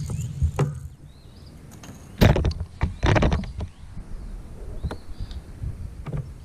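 Knocks and clatter against a fishing kayak's hull, a burst about two seconds in and another about a second later, with faint bird chirps.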